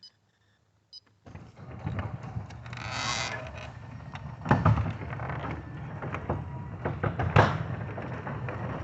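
Two short keypad beeps, then a garage door opener starts and the garage door runs, a steady rumbling with creaks and two louder clunks partway through.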